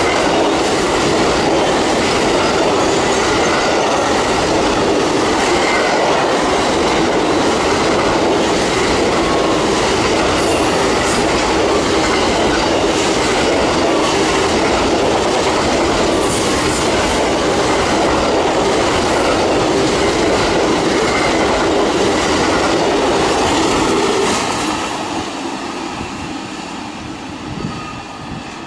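Amtrak Auto Train's bi-level autorack cars rolling past close by, a steady loud rolling noise of steel wheels on rail. The noise drops away over the last few seconds as the train draws off.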